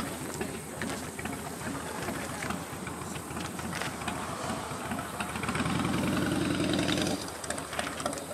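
A vehicle engine idling, with a louder, steadier stretch of about a second and a half near the end.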